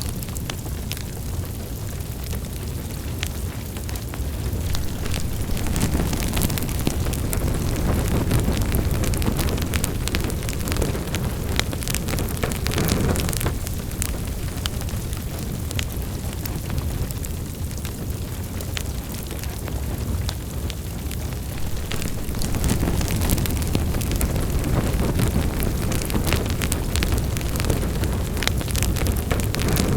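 Wood fire in a fireplace crackling and popping with irregular snaps over a steady low roar of the flames. It swells louder for a while twice.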